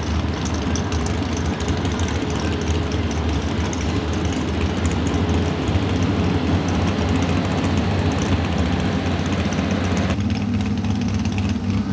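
Pro Stock 4x4 pulling truck's big-block V8 with open exhaust stacks idling, a steady loud low rumble. About ten seconds in the upper hiss drops away abruptly while the idle carries on.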